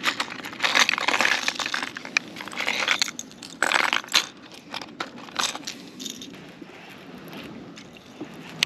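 Hard plastic crankbait lures and their treble hooks rattling and clicking against each other and the plastic compartments of a tackle tray as they are picked through. The rattling comes in clusters over the first half, then thins to scattered clicks.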